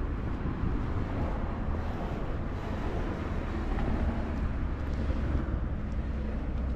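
Outdoor street ambience: a steady low rumble with hiss.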